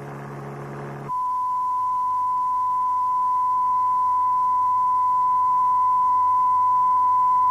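A low buzzing hum, then about a second in a steady, pure 1 kHz test tone that grows slowly louder. These are ear-training reference sounds for judging the frequency of a car's noise without an analyser.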